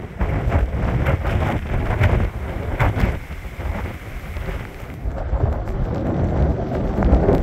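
Storm-force wind gusting against the microphone in a deep, uneven rumbling buffet, over the rush of surf and spray from waves breaking below.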